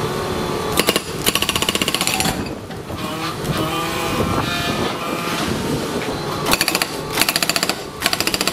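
Hydraulic breaker on a battery-electric mini excavator firing in short bursts of rapid, even blows against a rock: one burst about a second in and several close together near the end. In between, the machine's electrically driven hydraulics whine, the pitch stepping up and down as the boom moves.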